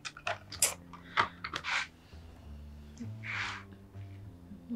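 Soft background music score with held low notes that change every second or so. A few short hissing sounds come in the first two seconds, and a soft breath-like hiss comes a little after halfway.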